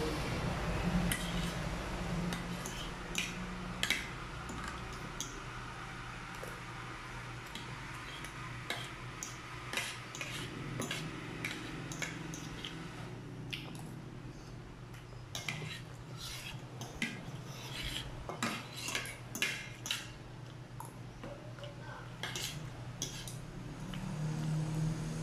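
Metal spoon and fork clinking and scraping against a plate while food is scooped up, in many irregular, sharp clinks that come thicker in the second half.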